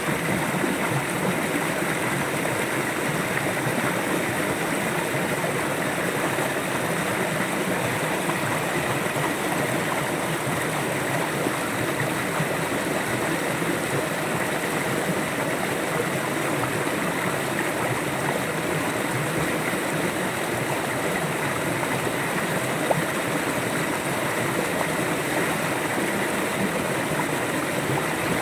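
River water flowing steadily, an even rushing that keeps the same level throughout.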